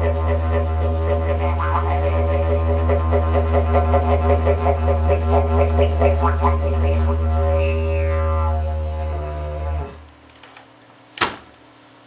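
Handmade wooden didgeridoo playing a steady low drone, pulsing rhythmically at about three pulses a second in the middle, with vowel-like sweeps in its overtones. The drone stops about ten seconds in, and a brief sharp sound follows near the end.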